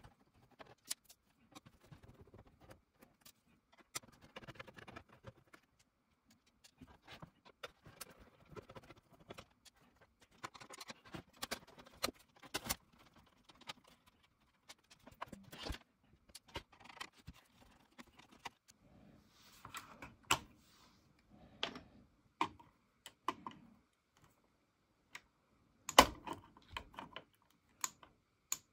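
Scattered clicks, taps and scrapes of a screwdriver and hands working on the metal chassis and panels of an Aiwa AD-3150 cassette deck, with one sharper, louder clack near the end.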